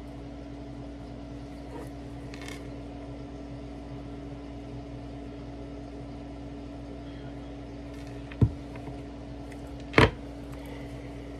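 Steady low electrical hum from a running household appliance, with two sharp handling knocks near the end, about a second and a half apart.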